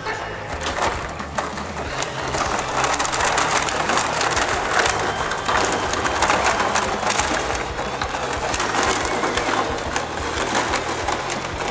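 Plastic bags crinkling and rustling in a dense crackle as they are handled and shaken, over background music.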